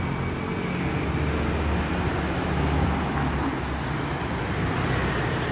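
City street traffic, with motor scooters riding past: a steady low rumble of engines and tyres.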